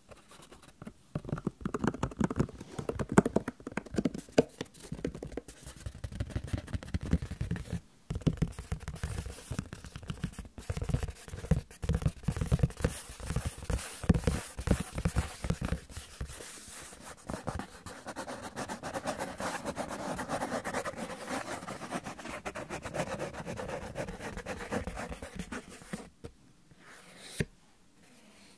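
A sheet of paper handled and scratched by fingers: a dense run of rustles and scratches for about the first half, then a steadier rubbing for several seconds, stopping shortly before the end.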